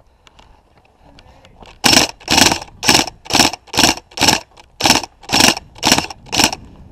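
Airsoft electric rifle fired in rapid short full-auto bursts, each buzzing motor-and-gearbox rattle lasting a fraction of a second. About ten bursts come at roughly two a second, starting about two seconds in.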